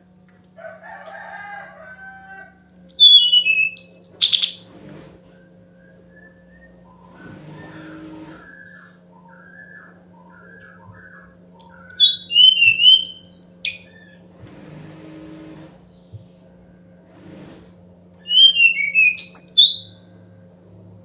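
Song of an SRDC jungle flycatcher (sikatan rimba dada coklat), used as a lure call: three loud phrases of quick, high whistled notes that slide downward, each lasting about two seconds, coming near the start, in the middle and near the end. Softer, lower twittering falls between the phrases, over a steady low hum.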